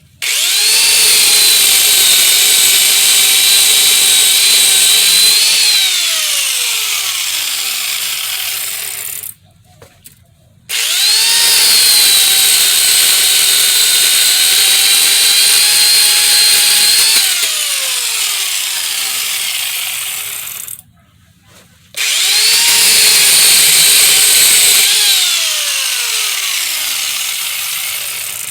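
Chainsaw cutting thick bush stems in three separate runs, each a few seconds long. Each run starts with the motor's high whine climbing quickly to full speed and holding steady. Partway through, the pitch slides down as the chain bites into the wood, and the run stops abruptly.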